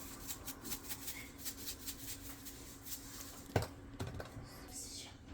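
Faint, quick ticking of salt being sprinkled onto raw chicken, with a sharper click about three and a half seconds in and another at the end as a spice container is handled.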